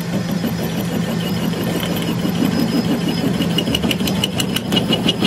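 Metal lathe running with its cutting tool working a steel excavator bucket pin: a steady motor hum, with fast ticking from the cut that becomes more marked past the middle.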